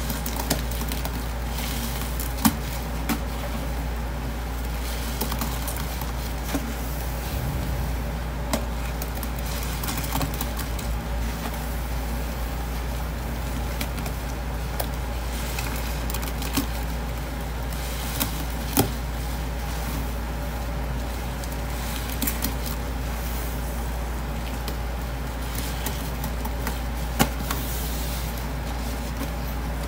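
Gloved hands squishing and kneading thick wet detergent paste in a stainless steel sink, a continuous squelching with a few sharp wet snaps scattered through. A steady low hum runs underneath.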